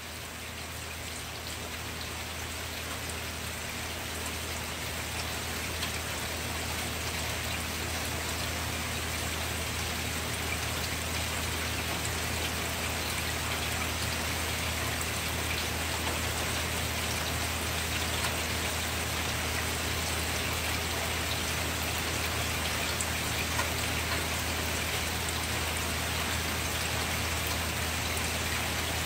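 Steady rain falling, a dense even patter of drops, growing louder over the first few seconds. A steady low hum runs underneath.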